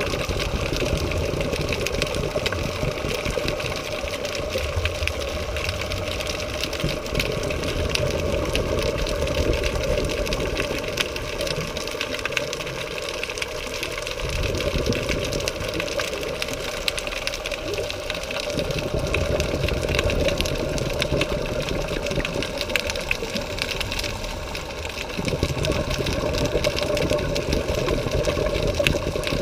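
Underwater sound on a scuba dive, heard through the camera's housing: a steady whirring drone, with a low rumble that comes and goes every several seconds.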